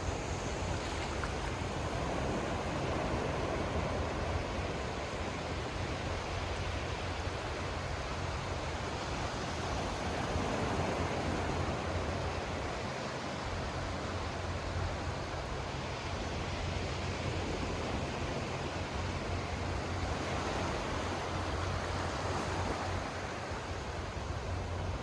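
Sea waves washing in, a continuous rushing wash that swells gently a few times.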